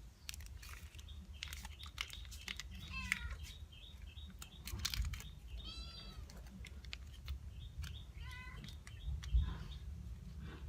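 A cat meowing three times, high rising-and-falling calls about 3, 6 and 8.5 seconds in, among scattered clicks and rustling like packets being torn open and food being handled.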